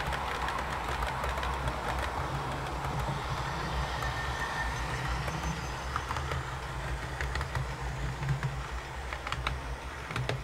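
OO gauge model trains running on the layout: a steady motor hum with wheels rattling and clicking over the track, the clicks growing more frequent in the second half as a model diesel multiple unit passes.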